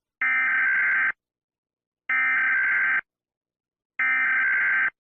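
Emergency alert system alarm: three identical beeps, each just under a second long, with about a second of silence between them.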